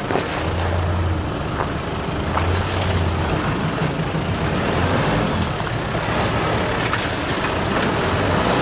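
Nissan Navara 4WD ute's engine pulling slowly up a deeply rutted, muddy track, the revs swelling and easing every second or two, with scattered knocks from the vehicle working over the ruts.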